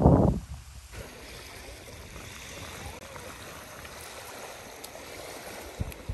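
Small lake waves lapping on a pebble shore in a steady wash. It opens with a short, loud rumble of wind on the microphone that dies away in the first second.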